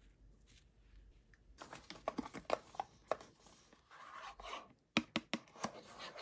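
Hands handling snacks and a cardboard pack of plastic pudding cups: rustling, rubbing and small clicks starting about one and a half seconds in, with a quick cluster of sharp clicks about five seconds in.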